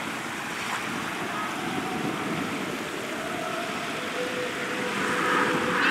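Formation of Aermacchi MB-339 PAN jets, each with a single Rolls-Royce Viper turbojet, passing at a distance: a steady rush of jet noise with a faint engine whine that grows louder near the end as the formation approaches.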